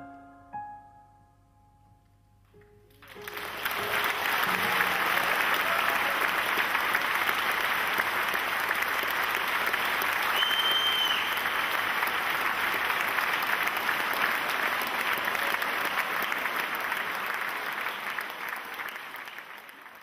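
The last soft, held notes of the live orchestra die away, then a theatre audience starts applauding about three seconds in. A short whistle cuts through the clapping about halfway, and the applause fades out near the end.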